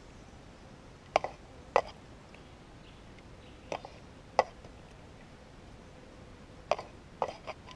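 Minelab GPX 5000 metal detector with a Sadie coil giving short, crisp target blips, seven in all and mostly in pairs, as a scoop holding a small gold nugget is passed over the coil.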